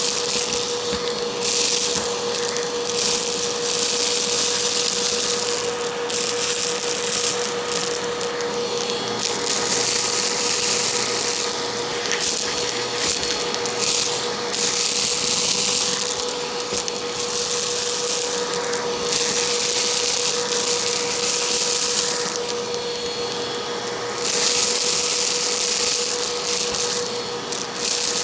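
Bissell vacuum cleaner running, with a steady motor whine under a rushing air hiss that swells and dips every second or two.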